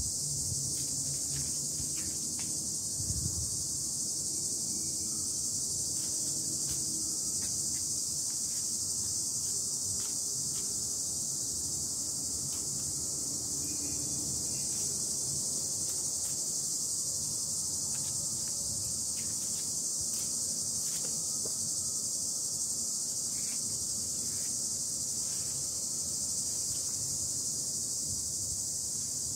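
A steady, high-pitched chorus of insects shrilling without a break, with faint scattered clicks and rustles beneath it and a low bump about three seconds in.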